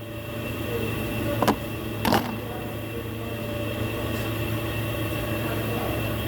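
Car engine idling steadily, with two sharp clicks about a second and a half and two seconds in.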